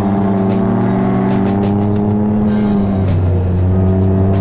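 Can-Am Ryker three-wheeler's engine pulling under acceleration, heard from the rider's seat: its note holds nearly level while the road speed climbs, then shifts lower about three seconds in.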